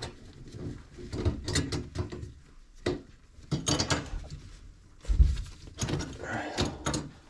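Irregular clicks, knocks and scraping of a wrench and gloved hands working on sink drain and supply fittings, with a dull thump about five seconds in.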